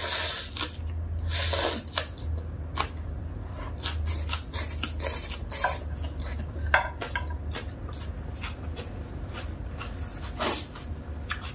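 Eating at a table: a slurp from a wooden spoon at the start, then chewing and the scrape and click of wooden chopsticks and a wooden spoon working noodles around a plate in sauce, as a string of short irregular clicks. A low steady hum runs underneath.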